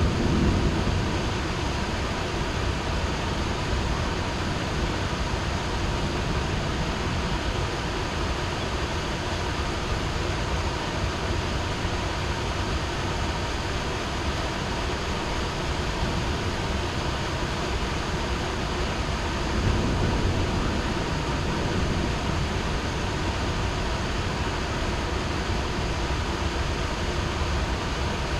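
Heavy rain pouring steadily, with a low rumble of distant thunder swelling briefly about two-thirds of the way through.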